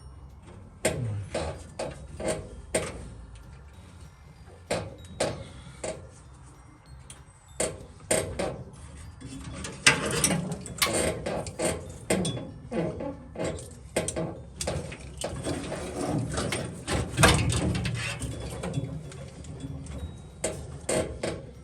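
Hand tools working on metal parts: irregular sharp knocks and clicks with scraping and rattling between them, busier in the second half.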